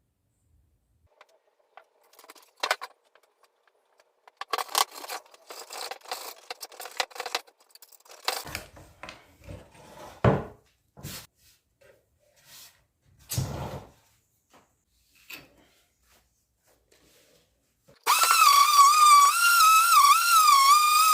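Scattered scrapes, clicks and knocks, as of wood and tools being handled, with quiet gaps between them. About 18 seconds in, music with a wavering, whistle-like melody starts suddenly and is much louder.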